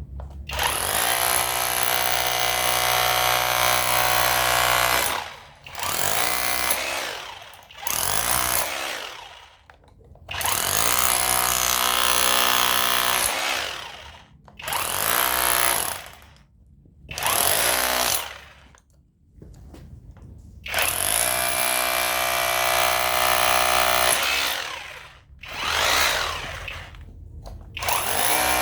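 Cordless rotary hammer in hammer mode, running on a homemade 21700-cell 5 Ah battery pack, breaking up concrete in about nine bursts of one to five seconds. The motor whine rises as each burst starts and falls away as it stops.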